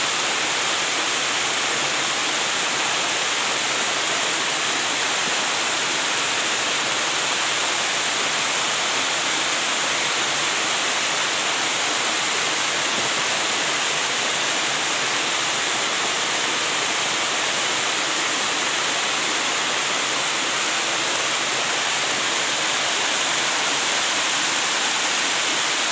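Waterfall cascading down a stepped rock face: a steady, unbroken rush of falling water.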